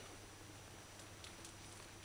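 Near silence: room tone with a faint low hum and a couple of very faint ticks.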